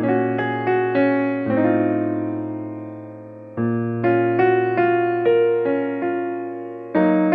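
Slow, gentle piano music: single notes and chords struck every half second or so, with one chord left to fade for about two seconds near the middle before the playing resumes.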